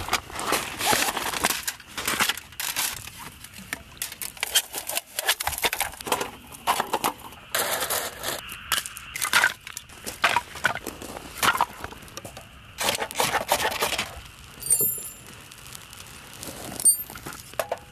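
Wood fire catching in a folding steel fire pit: dense, irregular crackling and snapping of burning kindling, with crunches and knocks as firewood is handled and pushed onto the fire.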